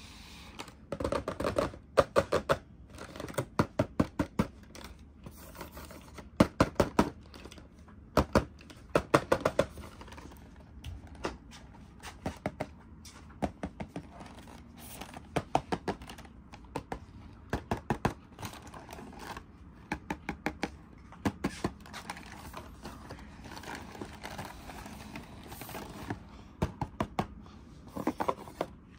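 Hands tapping and handling a box: quick clusters of sharp taps and clicks, several a second, coming in bursts every second or two.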